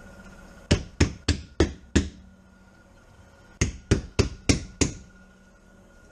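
Two runs of five sharp knocks, about three a second, from tapping by hand along the edge of a newly set windshield.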